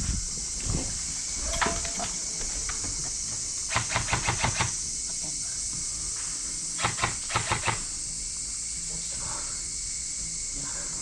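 Two short bursts of rapid airsoft gunfire, about five or six shots each, a few seconds apart, over a steady high hiss.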